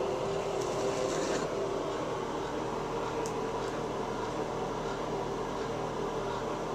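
Steady background hum and hiss, with a few faint clicks in the first second and a half.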